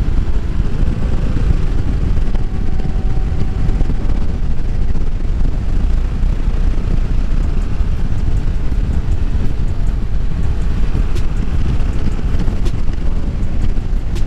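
Wind rushing over the microphone with the Yamaha Tracer 7's parallel-twin engine running steadily underneath while the motorcycle cruises in fifth gear.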